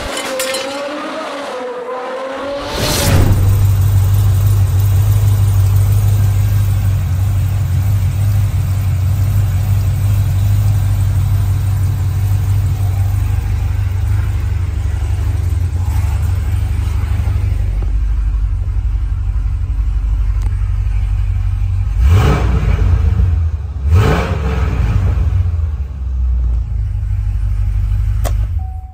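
Chevrolet Camaro's 6.2L L99 V8 idling steadily in park after a short logo jingle. Near the end the engine is blipped twice, about two seconds apart, in quick rising revs that drop back to idle.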